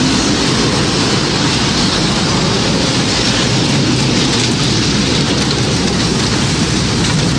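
Tornado sound effect: steady, loud noise of wind and rain, heaviest in the low end, with no siren heard.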